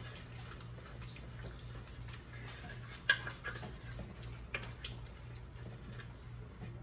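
Wooden spoon stirring thick chili in an enamelled Dutch oven: soft scraping with scattered light knocks against the pot, the sharpest about three seconds in, over a steady low hum.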